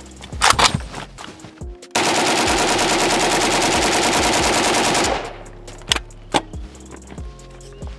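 Pioneer Arms 5.56 Sporter AK rifle firing one continuous full-auto burst of about three seconds, starting about two seconds in. It empties a 30-round magazine at roughly ten shots a second.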